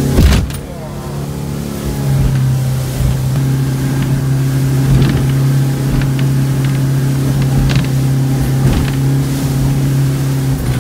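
Boat engine running steadily under way. There is a loud sharp knock right at the start and a few fainter knocks later.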